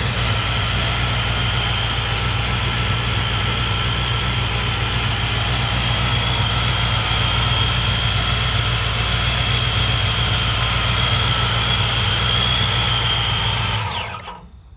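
Supercharged 496 big-block Chevrolet V8 idling steadily with a high whine over its low exhaust note, then switched off about fourteen seconds in and dying away within a second.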